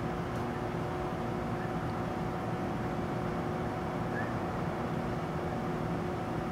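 Steady background noise with a faint, even hum at a constant level and no distinct events.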